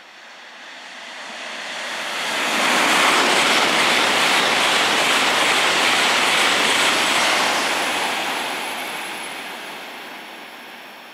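E2 series Shinkansen train passing through the station at high speed without stopping: a rushing noise that swells over about three seconds, stays loud for about five, then fades away as the train leaves.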